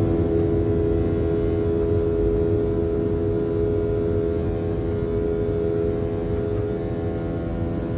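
Cabin noise of a Boeing 737-800 in operation: the CFM56 jet engines and airflow make a steady drone, with a held hum that stays on one pitch throughout.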